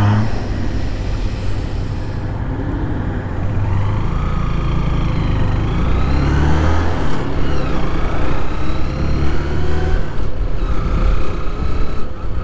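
Honda motorcycle's engine running under way, heard from the rider's helmet over a steady low rumble; the engine note climbs for a couple of seconds, drops back about seven seconds in, and falls again near the end.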